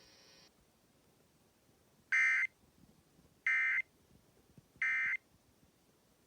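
Emergency Alert System end-of-message signal: three short, harsh digital data bursts about a second apart, marking the end of the tornado warning alert.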